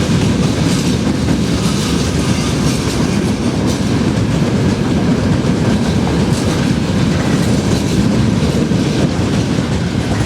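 Freight train wagons rolling past close by: a loud, steady rumble of wheels on the rails.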